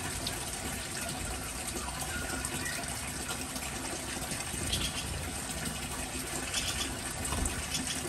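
Steady rush of water with a few faint, short bird chirps around the middle and again near the end.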